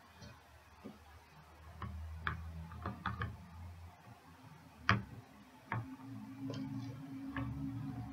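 Irregular plastic clicks and light knocks as a Kotobukiya figure is handled and pressed onto its plastic display base; the sharpest click comes about five seconds in.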